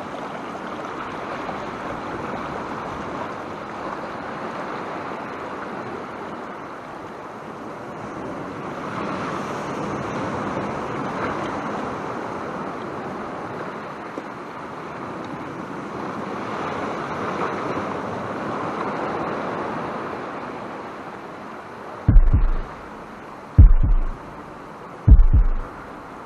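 Sea swell surging and washing against a rocky shore, with wind noise on the microphone, rising and falling every few seconds. Near the end come three heavy low thumps, evenly spaced about a second and a half apart.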